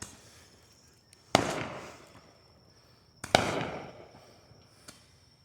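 Two loud firework explosions about two seconds apart, each echoing away over a second or so, with a faint pop or two between them.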